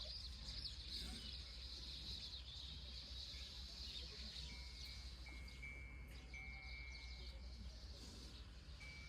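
Outdoor rural ambience: a steady high-pitched hiss that fades about four seconds in, over a low rumble, with a thin, steady whistle-like tone heard in short pieces from about halfway through.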